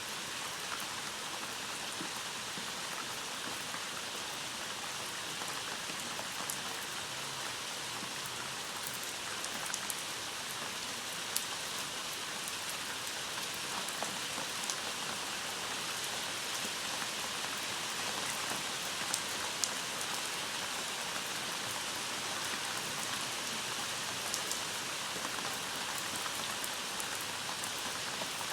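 Steady rain falling, with scattered sharper ticks of single drops.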